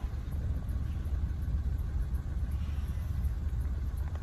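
Steady low rumble of a double-stack intermodal container train's cars rolling past on the rails.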